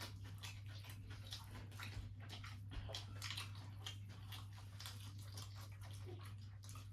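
Faint eating sounds, chewing and light scattered clicks of food and dishes, over a steady low hum.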